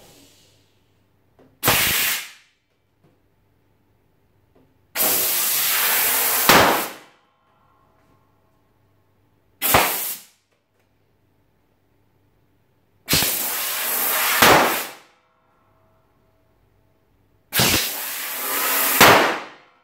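Compressed air hissing from a compressor's air-hose nozzle in five separate blasts as balloons are inflated. Each blast starts suddenly, and the longer ones get louder toward the end before cutting off.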